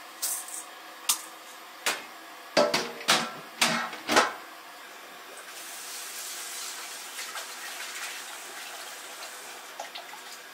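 A quick series of sharp clatters and knocks as a bowl scoops dry rice from a plastic bucket. From about five seconds in, a kitchen tap runs steadily into a stainless-steel bowl of rice being rinsed.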